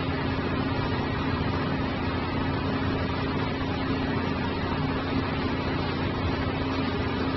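Steady background hiss with a constant low hum, unchanging throughout, with no distinct knocks or calls.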